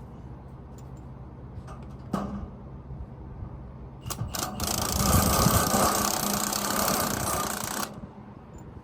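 A power tool runs in one loud burst of about four seconds, starting about four seconds in, over a steady low engine hum; a couple of short knocks come before it.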